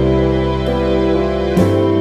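Slow, tender background music of sustained notes, with the chord changing about every second and a half.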